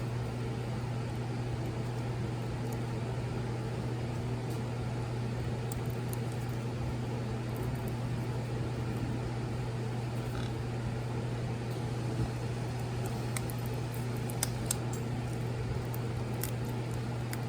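Steady low mechanical hum, with a few light clicks and taps from handling small parts.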